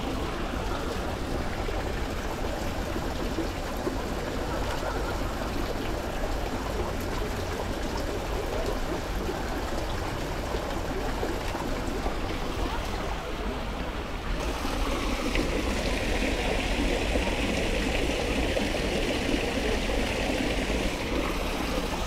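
Steady rush of running water, changing in tone about fourteen seconds in.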